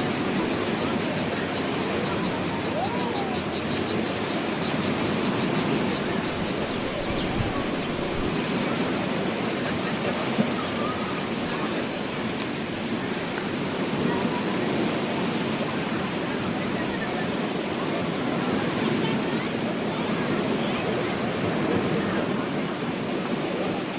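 Beach ambience: a steady wash of ocean surf, with a continuous high, fast-pulsing insect trill over it.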